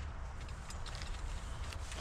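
Faint scattered ticks and handling noises of a dashboard being wrapped, over a steady low hum.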